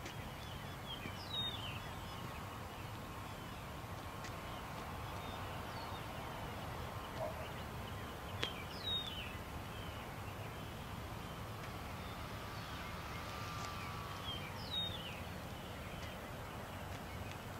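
Faint, steady whine of a distant radio-controlled model airplane's motor, swelling slightly near the end. A bird's short falling call sounds three times, about six seconds apart, over a low outdoor rumble.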